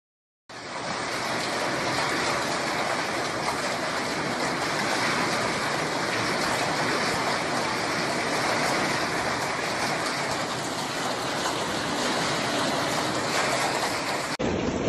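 Heavy hailstorm: hailstones and rain pelting the ground in a dense, steady rush. It starts about half a second in and is cut off abruptly near the end.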